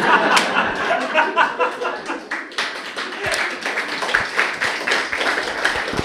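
Audience applauding, with voices mixed in among the claps; the applause thins out near the end.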